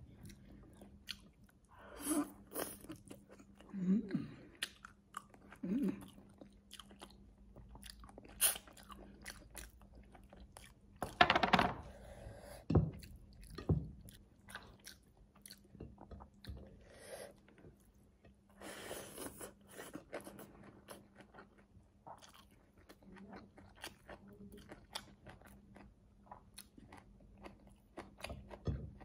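Close-up eating sounds of a meal of goat ribs, rice and raw cucumber and radish salad eaten by hand: irregular chewing and crunching, with a few louder crunchy bouts.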